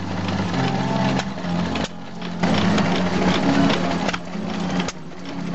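Small stationary engine running steadily with a fast, even beat, driving the vacuum pump of a milking machine, with a steady hum under it; the sound changes abruptly a couple of times.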